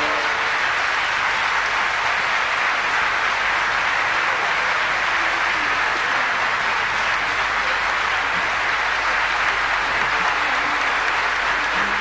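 Large concert-hall audience applauding steadily. The orchestra and choir's held final chord cuts off in the first half second.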